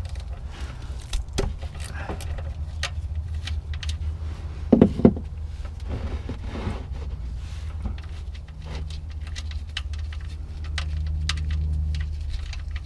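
Scattered light clicks, clinks and rustles of hands handling small parts and packaging, over a steady low hum, with two short louder bumps about five seconds in.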